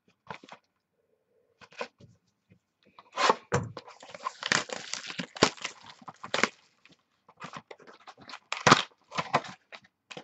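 Plastic shrink-wrap being torn and crinkled off a sealed box of trading cards, then the cardboard box being handled open: irregular crackling with sharp tearing sounds, busiest in the middle and again near the end.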